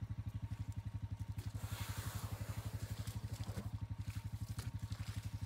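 An engine idling steadily, a low even throb of about ten pulses a second. A brief rustling swell comes about two seconds in.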